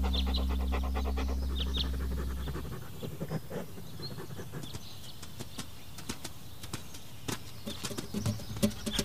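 Soft music fades out over the first few seconds, leaving quiet outdoor ambience with scattered short bird chirps and light clicks.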